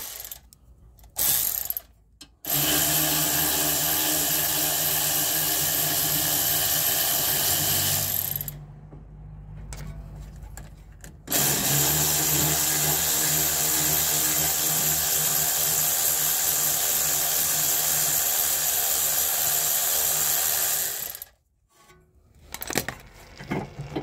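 Cordless impact wrench running on the hex-head front brake caliper bolts, backing them out. A short blip about a second in, then two long steady runs of the motor, about six and ten seconds long, with a lull between.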